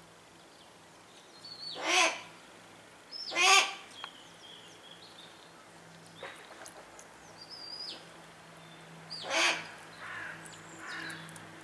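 Harris's hawks calling at the nest: three loud, harsh calls, two close together about two and three and a half seconds in and one more near the end. Faint thin high chirps sound between them.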